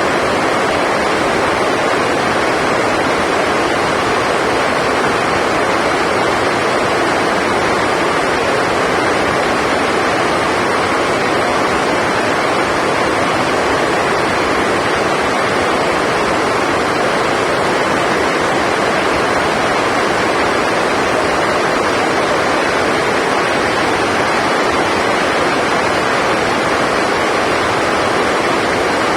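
Heavy rain drumming on a sports hall's roof: a loud, steady rush of noise with no breaks.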